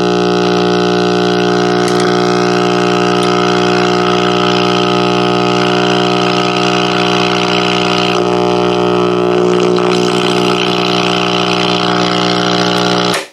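1959 Westinghouse H673T5 five-tube AC/DC table radio putting out a steady, extremely loud 60 Hz hum through its speakers with the volume all the way down. This is the sign of failed ripple filter capacitors letting the rectified supply from the 35W4 rectifier tube swing up and down in voltage. The hum cuts off suddenly near the end.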